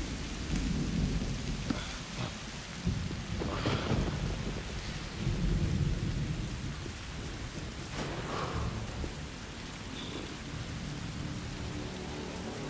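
Heavy rain falling steadily, with low thunder rumbling underneath in slow swells.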